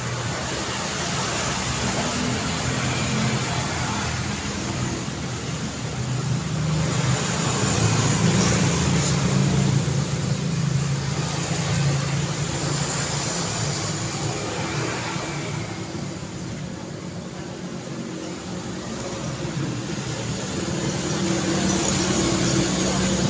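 City road traffic: cars passing one after another, engine hum and tyre noise swelling and fading as they go by. Loudest about eight to ten seconds in, it eases off past the middle and builds again near the end.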